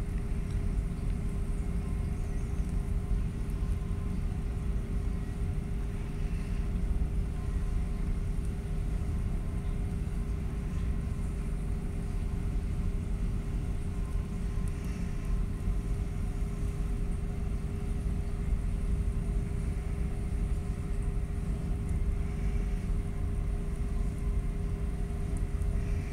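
Steady low rumble of machinery with a constant hum.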